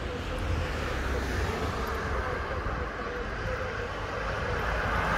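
A car driving up the street, engine and tyres on tarmac, over a steady low rumble of outdoor street noise, growing a little louder toward the end.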